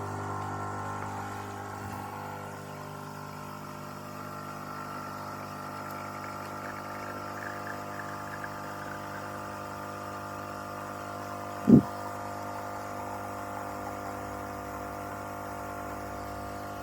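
Espresso machine pump running steadily while pulling a shot, a level hum of several held tones, with a single short knock about twelve seconds in.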